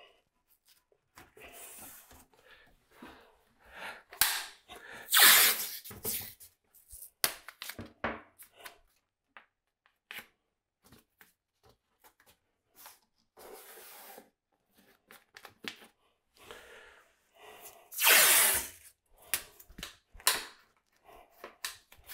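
Green painter's tape being pulled off the roll in ripping strips and pressed down by hand onto a cabinet face frame, with rustling and small clicks in between. The two loudest rips come about five seconds in and near eighteen seconds in.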